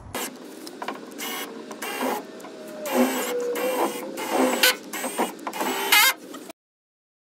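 Cordless drill whirring in short stop-start runs under a shed's raised floor, with one longer run of steady motor whine in the middle. The sound cuts off abruptly about two-thirds of the way through.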